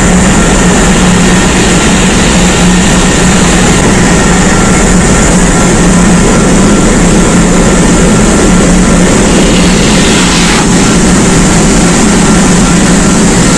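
Loud, steady ship engine-room machinery noise with a strong low hum and a few thin whining tones. About ten seconds in, a brief rise in hiss ends with a click.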